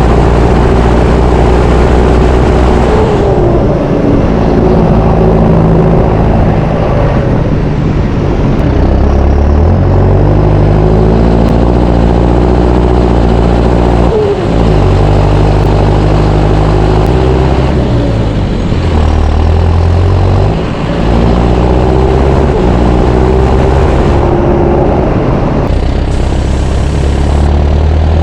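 John Deere 6430 Premium tractor's four-cylinder diesel engine running loud and close, its engine speed stepping up and down several times, with short dips in between.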